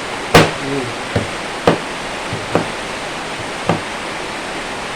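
Knife chopping ginger on a cutting board: about six separate sharp chops at uneven intervals, the first the loudest, over a steady background hiss.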